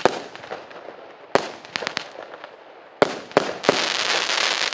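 A 0.8-inch, 19-shot consumer firework cake ('Russkiy Suvenir') firing its last shots: several sharp bangs about a second or so apart with small pops between. Near the end the finale salvo breaks into a dense, continuous crackling of crackling-rain stars.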